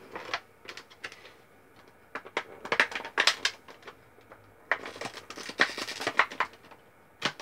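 Toy packaging crinkling and clicking as it is pulled and pried at to free a stubborn sonic screwdriver toy, in two bursts of sharp crackles with a quieter gap between.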